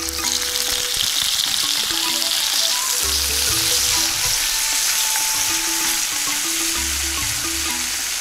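Pieces of cured wild boar meat sizzling loudly in hot oil in a cast-iron skillet, starting suddenly as they drop into the oil and staying steady, while a wooden spoon stirs them.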